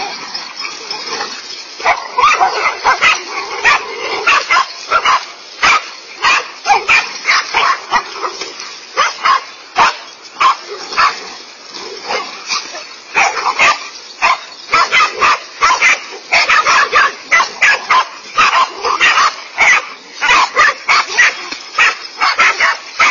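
Dogs barking and yapping in quick, overlapping barks, several a second, as they attack a large snake.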